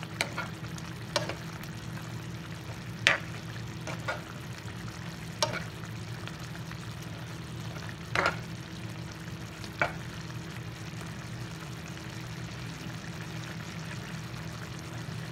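A white spatula stirs thick coconut-milk sauce simmering in a nonstick frying pan, giving about seven short scrapes and knocks against the pan over a steady low hum.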